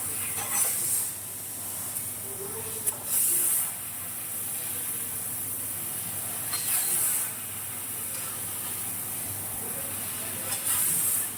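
Laser cutter cutting 2.5 mm aluminium with nitrogen assist gas: a steady high hiss of gas from the cutting head, rising four times into a louder half-second rush of hiss, about every three and a half seconds.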